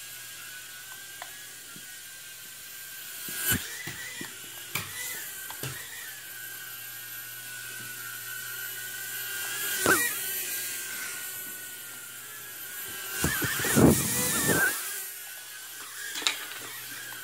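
Mini toy quadcopter's propellers whining steadily as it hovers, the pitch of the whine climbing briefly at moments as it speeds up. Several sharp knocks break in, with a longer loud clatter about three-quarters of the way through.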